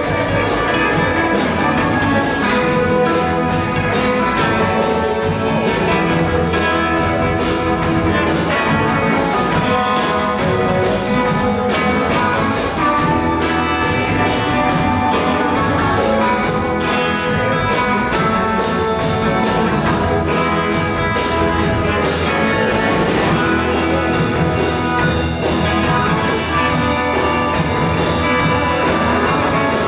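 Live electric blues band playing in the 1950s Chicago style, with electric guitars, upright bass and drums under a steady beat. A blues harmonica takes the lead.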